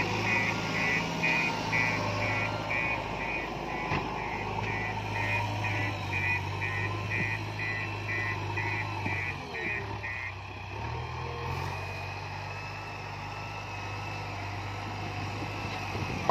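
JCB backhoe loader's diesel engine running under load, with its reversing alarm beeping in a quick, regular train. The beeping stops about ten seconds in, and the engine note drops briefly, then picks up again.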